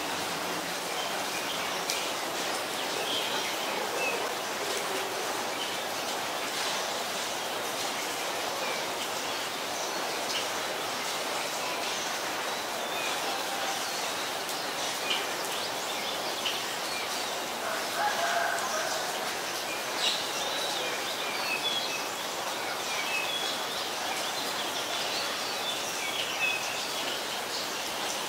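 Steady hiss of rain, with short bird chirps scattered throughout and a slightly louder call around the middle.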